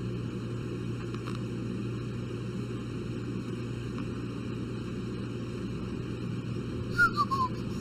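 Steady rumble of a moving double-deck commuter train heard from inside the passenger carriage. A few short, high, falling squeaks sound near the end.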